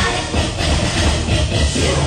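Loud dance music with a heavy, pulsing bass beat, accompanying a dance troupe's routine.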